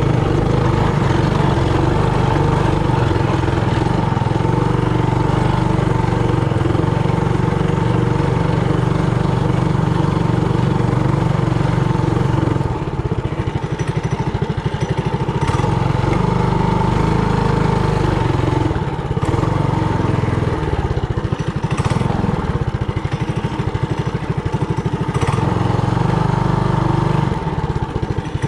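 Trailmaster Hurricane 200X mini bike's single-cylinder four-stroke engine running as the bike is ridden along a dirt trail. The engine note drops a little about halfway through and again near the end, as the throttle eases off.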